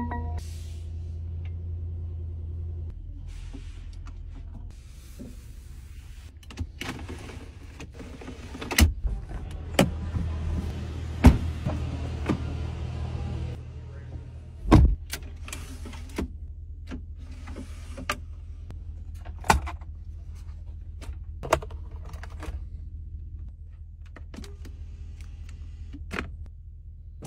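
Inside the cabin of a Mercedes-Maybach GLS 600 with the twin-turbo V8 started: a steady low hum runs throughout. Over it come stretches of electric motors whirring from the power window and seat adjustment, and a string of sharp clicks and taps from buttons and switches being pressed.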